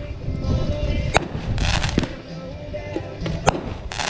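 Consumer fireworks going off: sharp bangs about a second in and again after three seconds, with bursts of crackling hiss between them.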